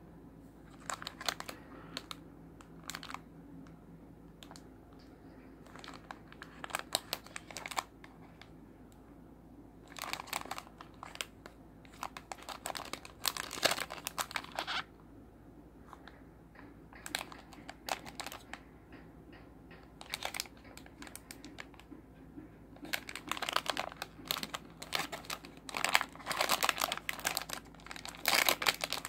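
Clear plastic packaging of a trading-card mini portfolio crinkling in irregular bursts as it is handled and opened, with quieter gaps between; the crinkling is busiest near the end.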